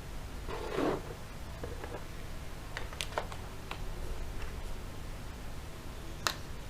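A rustle about a second in, then scattered sharp clicks: a screwdriver and small screws being handled as the keyboard screws are taken out of a Compaq Presario CQ35 laptop.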